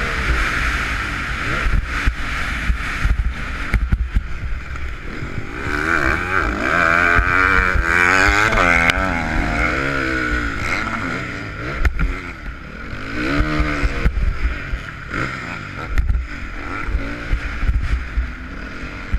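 Honda CRF450 motocross bike's single-cylinder four-stroke engine revving up and down repeatedly as it is ridden over the jumps, with low wind rumble on the microphone and sharp knocks from the bumps at several points.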